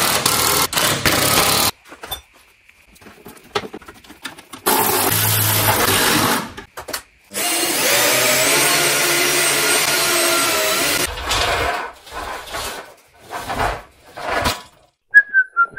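Cordless power tool running in bursts. First a run of about a second and a half on the engine-mount bolts under the car, then two runs of a cordless drill turning the drive screw of a portable scissor car lift to lower the car, the longer one about three and a half seconds with a steady motor tone. A few knocks follow near the end.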